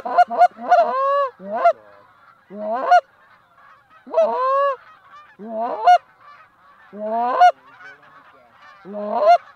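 Goose honking: seven loud groups of rising, breaking honks about a second and a half apart, over the fainter steady calling of a large flock of geese.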